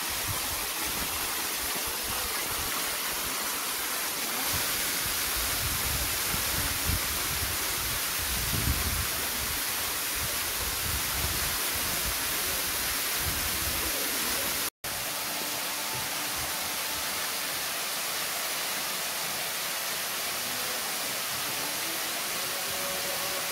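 Waterfall rushing steadily as it pours down a rock face into a plunge pool. A low rumble swells and fades in the first half, and the sound drops out for an instant about fifteen seconds in.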